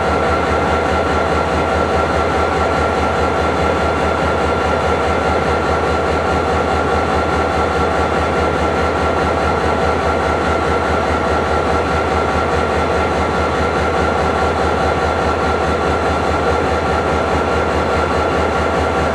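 Freight train rolling through, a steady, even rumble of rail noise with a constant high-pitched tone over it.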